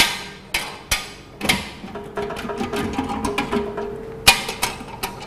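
Stainless steel lid and parts of a soy milk grinding machine (juice residue separator) being handled: a string of sharp metal knocks and clanks, with a steady ringing tone between them in the middle.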